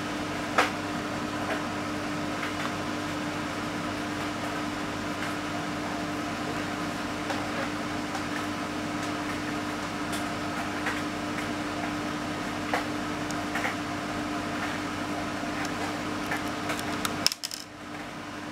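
Steady machine hum with one constant low tone, with a few faint metal clicks of a hex key turning a screw in an air rifle's breech. The hum cuts out suddenly near the end.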